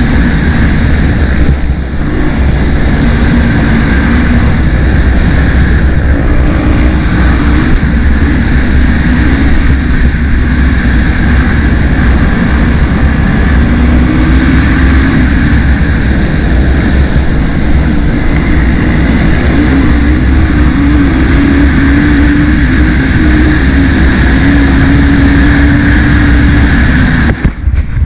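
Racing quad (ATV) engine running hard under load, its note rising and falling with the throttle, over heavy wind buffeting and rumble on an onboard microphone. The sound turns choppy and drops near the end.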